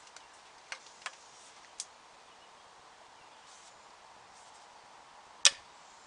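Sharp clicks from small hand work on a fitting: three light ones in the first two seconds and one much louder snap near the end, over a faint steady outdoor background.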